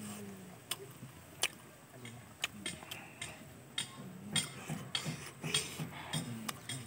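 Eating sounds from fried chicken being pulled apart by hand and chewed: irregular sharp clicks and smacks with soft low mouth sounds between them, picked up close by a clip-on microphone.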